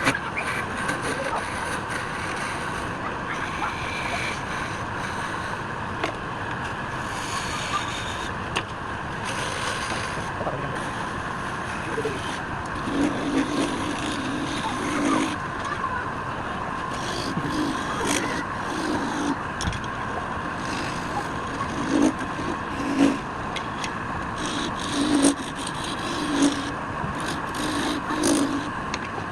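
Wood lathe running with a steady motor hum while a turning tool cuts and scrapes the spinning wood in short, irregular strokes.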